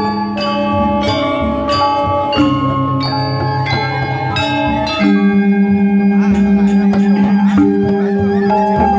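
Balinese gamelan gong ensemble playing: bronze metallophones and kettle gongs strike quick ringing notes. About halfway through, a loud low held tone comes in with a fast, even pulsing shimmer.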